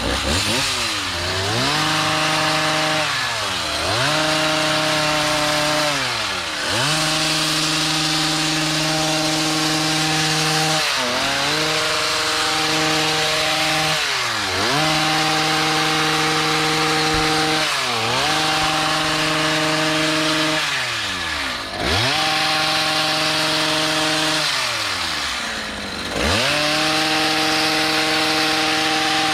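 Gas two-stroke hedge trimmer cutting shrubs, its engine revved to full throttle and held for a few seconds at a time, dropping back briefly between passes about eight times.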